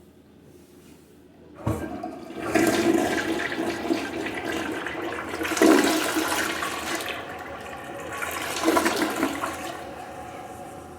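Mansfield Alto toilet flushing: a sharp click of the handle and flush valve a little under two seconds in, then rushing water that swells several times and slowly eases off.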